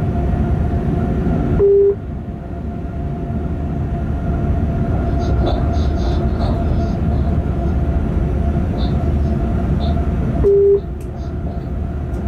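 Freight locomotive cab at running speed: the steady rumble of wheels on the rails with a steady hum. A short, loud electronic beep sounds twice, about nine seconds apart, and light rattling clicks come and go.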